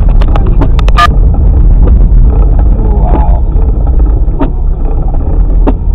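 Car's engine and road noise as heard inside the cabin while driving: a loud, steady low rumble, with a few sharp clicks in the first second and two more later on.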